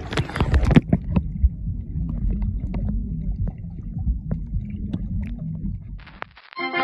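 Water sloshing and splashing in the first second, then the muffled low rumble and scattered faint clicks of a camera microphone underwater in a swimming pool. Brass-led music comes in near the end.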